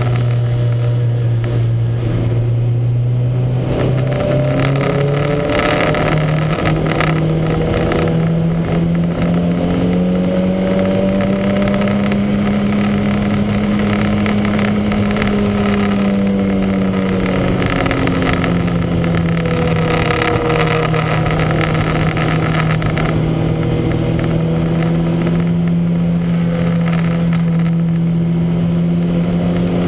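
Lancia Montecarlo's four-cylinder engine running hard under race load, its pitch jumping up a few seconds in, then slowly climbing and falling away before holding steady. The car is running with a misfire.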